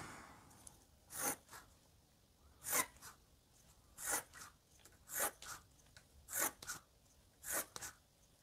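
Pencil scratching on watercolour paper in six short strokes, about one a second, several followed by a lighter second stroke: marks being made every 2 cm to lay out a grid of squares.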